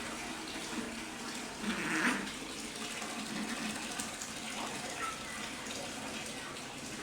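A male cat gives a short, low yowl about two seconds in, during a stand-off between fighting tomcats. A steady rushing noise like running water lies under it.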